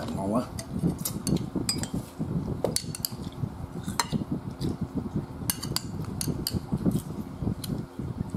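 Metal spoon stirring and scooping in a ceramic bowl of dipping sauce, clinking against the bowl's side with scattered sharp clinks.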